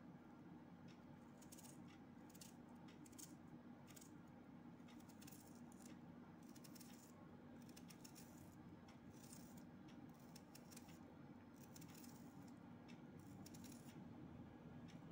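Faint, crisp snicks of a small kitchen knife slicing through a raw onion held in the hand: irregular cuts, roughly two a second, over a faint steady low hum.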